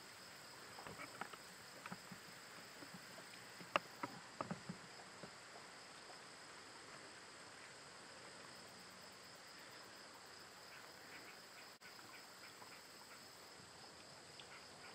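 Steady high-pitched insect chorus holding two even pitches throughout. A scatter of short clicks and ticks comes in the first five seconds, with one sharp click about four seconds in.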